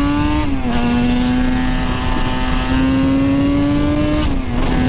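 Suzuki RG500's 500cc square-four two-stroke engine pulling under acceleration. Its pitch climbs slowly and drops sharply at an upshift about half a second in and again near the end.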